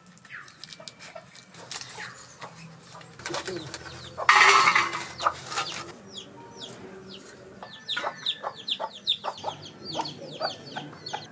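Chickens: a hen clucking while chicks peep in quick, high, falling cheeps, several a second, through the second half. A loud harsh burst about four seconds in is the loudest moment, and scattered light clicks come before it.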